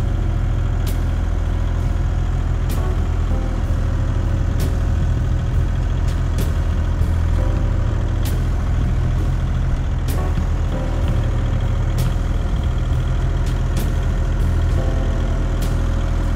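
Excavator's diesel engine running steadily, with sharp clicks every second or two.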